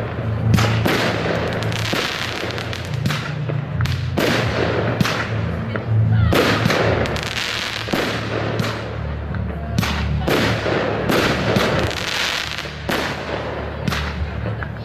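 Fireworks display: aerial shells bursting in quick succession with crackling trails, dozens of bangs a few tenths of a second apart. Music with a bass line plays underneath.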